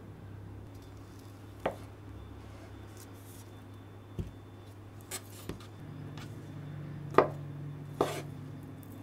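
Kitchen knife cutting a steamed sweet potato on a wooden cutting board: about six separate cuts, each ending in a knock of the blade on the board, the two loudest near the end.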